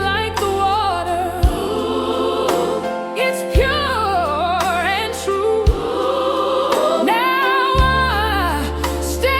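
Slow gospel music: a wordless sung line with wide vibrato gliding over sustained chords and a held bass, with a drum hit about every two seconds.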